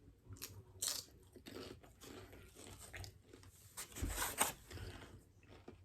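A person biting and chewing crunchy food close to the microphone: a scattered run of crunches, the loudest about four seconds in.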